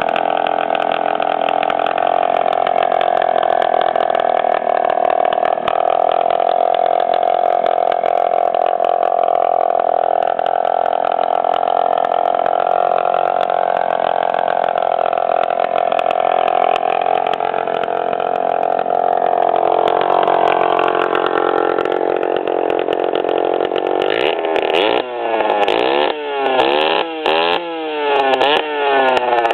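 A 1997 Suzuki DS80's two-stroke single-cylinder engine running with a major exhaust leak, its pipe broken off at the cylinder head, giving a raw, unmuffled buzz. It runs steadily for most of the time, then is revved in a string of quick throttle blips near the end.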